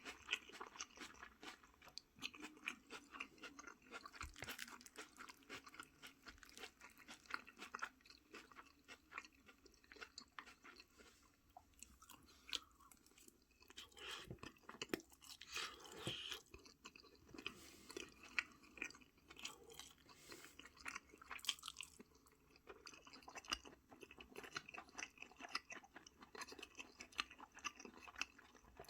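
A person chewing and eating food close to the microphone, with many small, irregular mouth clicks.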